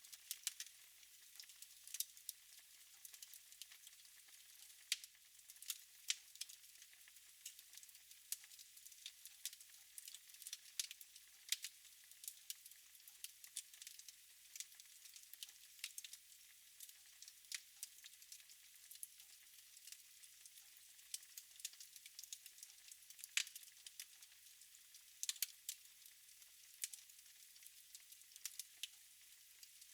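Wood fire in a fireplace crackling: faint, irregular pops and snaps over a soft hiss, a few of them sharper and louder than the rest.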